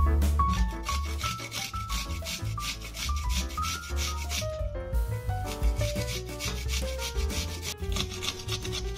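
A garlic clove grated on a small stainless-steel box grater, with quick, even rasping strokes and a brief pause about five seconds in. Background music with piano-like notes plays underneath.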